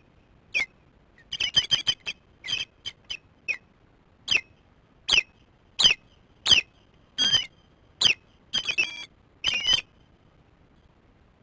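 Ospreys giving alarm calls: a series of short, sharp, high whistled calls, some single and some in quick runs of four or five, raised at an intruder near the nest.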